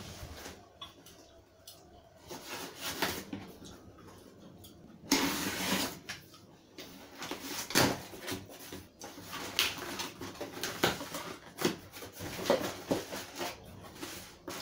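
Cardboard shipping box being opened by hand: packing tape cut and pulled, cardboard flaps scraping and folding back. There is a longer rasp about five seconds in, followed by a series of sharp clicks and knocks.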